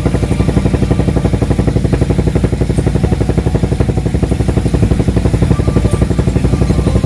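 Fishing boat's engine running steadily with a fast, even pulse.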